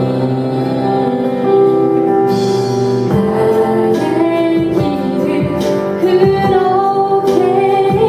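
A woman singing a slow song into a handheld microphone over instrumental accompaniment, with long held notes.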